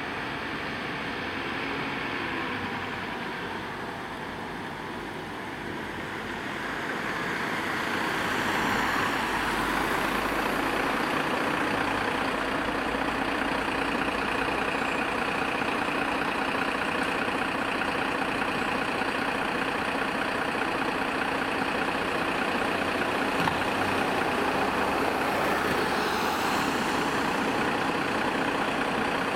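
Diesel engine of a Mercedes-Benz Atego fire-brigade equipment truck idling. It grows louder about seven seconds in as the truck comes close, then runs steadily.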